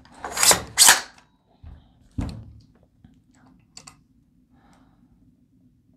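The charging handle of a 9mm AR-style pistol is pulled back and let go, the bolt going forward to re-cock the hammer: two sharp clacks about half a second apart. Two lighter knocks follow a second or so later, with a few faint ticks of handling as the trigger gauge is hooked on.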